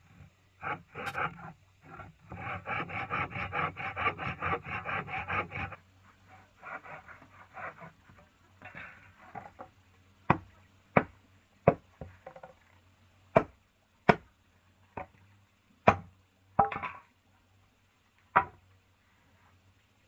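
Wood being worked by hand: fast, even rasping strokes for the first few seconds, softer scraping after that, then about ten sharp separate knocks.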